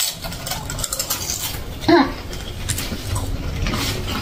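People crunching and chewing crisp seaweed chips, a dense run of small cracking crunches, with one short voice sound about two seconds in.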